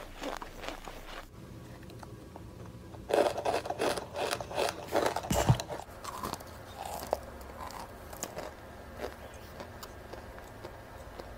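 Chunks of pressed cornstarch crunching as they are bitten and chewed close to the microphone. The crunches are loudest and come in a quick run from about three to six seconds in, then thin out to quieter clicks and chews.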